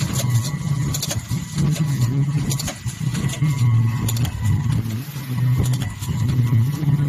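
Drip coffee bag packaging machine running: a low mechanical hum that swells and fades in a repeating cycle, with sharp clicks and clacks from its moving parts over it.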